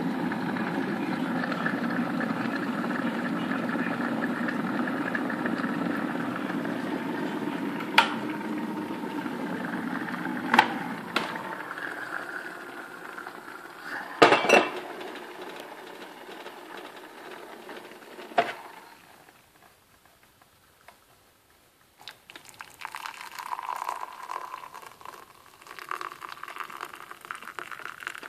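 Electric kettle heating water with a steady rushing noise that dies away about twelve seconds in, with a few sharp clicks and clinks. After a short quiet spell, hot water is poured from the kettle into a ceramic mug, splashing onto a tea bag.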